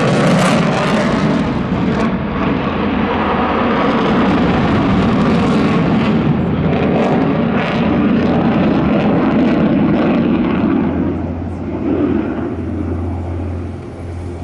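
Sukhoi Su-35's twin jet engines, a steady loud roar that fades somewhat near the end.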